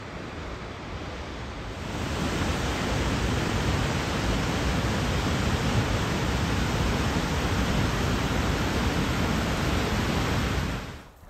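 Waterfall and the whitewater below it: a steady rush of falling water that grows louder about two seconds in and cuts off sharply just before the end.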